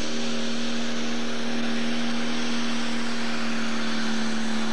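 Pulling tractor's diesel engine running flat out under full load as it drags the weight sled, holding a steady pitch.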